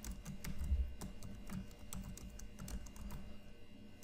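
Typing on a computer keyboard: irregular keystroke clicks, a few a second, with a low thump just under a second in.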